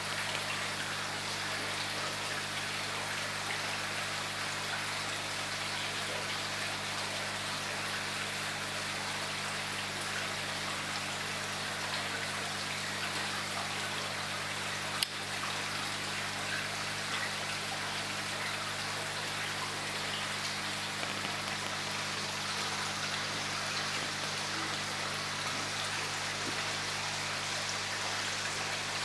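Steady splashing and trickling of koi pond water, with a low steady hum beneath and one sharp click about halfway through.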